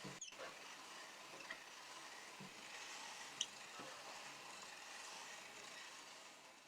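Meat grinder crushing goldfish crackers: a faint, steady crackling hiss with a few small clicks.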